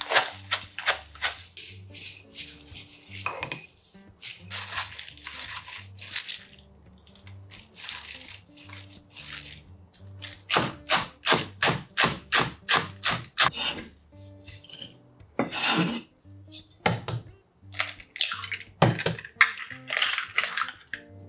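Kitchen prep sounds over soft background music: a metal spoon clinking and scraping against a ceramic bowl of rice, a quick run of sharp taps about halfway through, and an egg cracked on a bowl's rim near the end.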